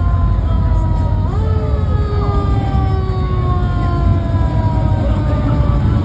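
Classic cars' engines rumbling as they cruise past, with a siren wailing over them. The siren's tones slowly fall in pitch and jump back up twice near the start.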